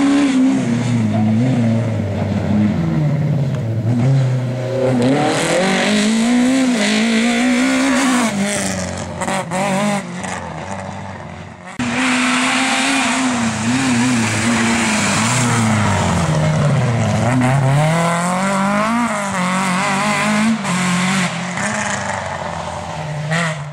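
Rally-prepared Volkswagen Golf Mk1's engine revving hard, its pitch climbing and dropping again and again as the driver works through the gears. The sound cuts off abruptly about halfway through and the next pass of the same car takes over.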